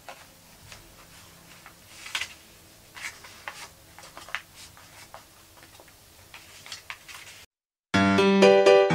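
Soft paper rustles and light clicks as a folded-paper 3D egg is handled and turned in the hands. About seven and a half seconds in the sound cuts to a moment of silence, then electric piano music starts.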